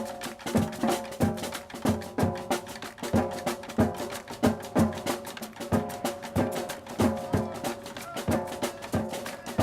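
Percussion-led music with a steady drum beat over pitched notes.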